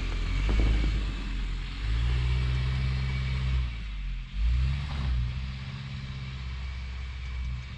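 SUV engine running under load as the car climbs a loose sand slope on Falken Wildpeak AT Trail all-terrain tyres, with a hiss from the wheels working the sand. The engine note dips briefly about four seconds in, then picks up again.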